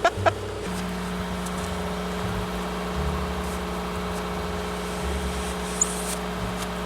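Car engine idling with a steady hum and the heater fan blowing, heard from inside the cabin. A rapid beeping chime cuts off within the first half second.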